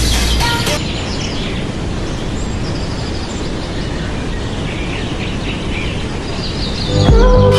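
Birds chirping now and then over a steady rushing background noise. Music cuts off just under a second in and comes back near the end.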